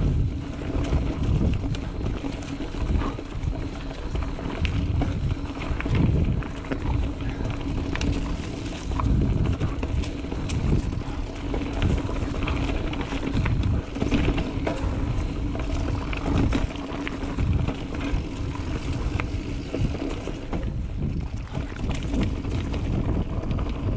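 Mountain bike riding on a dirt singletrack: wind buffeting the microphone over the rumble of knobby tyres on dirt, with frequent rattling clicks and knocks from the bike.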